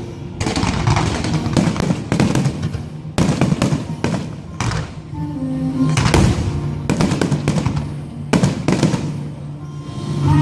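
Fireworks going off in a rapid, irregular series of sharp bangs, some in quick clusters, over music.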